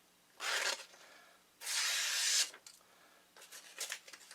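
Camillus LK6 folding knife's blade slicing through a sheet of copy paper in the paper test: a short cut about half a second in, then a longer cut of about a second near the middle, with faint paper rustling near the end.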